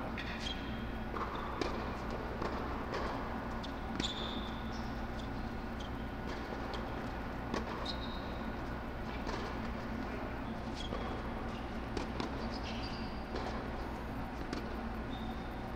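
Tennis balls being struck by rackets and bouncing on a hard indoor court, sharp knocks every second or two, with short high sneaker squeaks on the court surface. Underneath runs the steady low hum of the tennis dome's air blowers.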